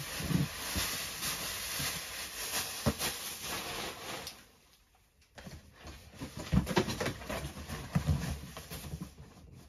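White plastic packing stuffing rustling and crinkling as it is pulled out of a cardboard shipping box, then the box's cardboard flaps being handled with dull knocks and scrapes. The sound cuts out briefly about halfway.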